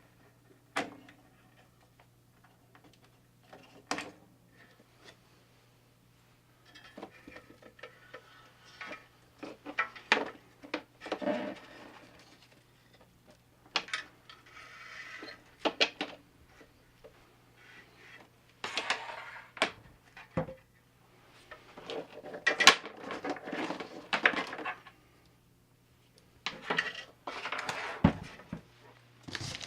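Intermittent clicks, knocks and metallic clatter of tools and hardware being handled, in irregular clusters, over a steady low hum.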